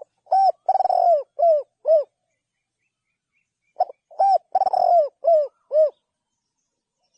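Spotted dove cooing: two song phrases about four seconds apart, each a short note followed by a run of low, falling coos, one of them longer and rolled.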